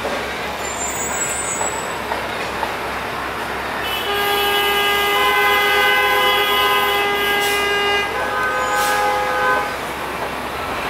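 Ice cream truck's chime jingle playing over steady city street noise. The tune comes in about four seconds in and runs for about five seconds.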